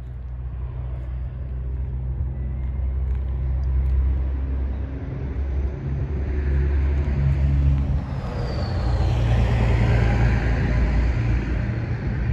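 Low, steady rumble of a running vehicle, with a hiss that grows louder from about halfway through and a brief falling tone a little after that.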